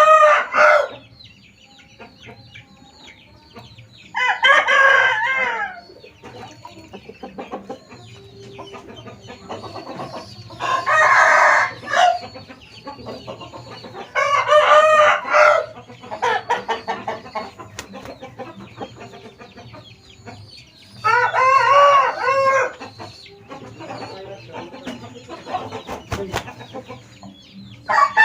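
Bangkok game roosters crowing: five loud crows of about a second and a half each, spaced several seconds apart, with quieter clucking between them.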